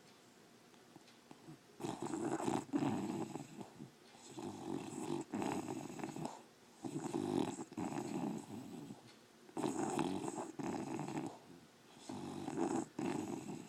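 English bulldog snoring loud in its sleep: about six snores, each a second or two long, starting about two seconds in.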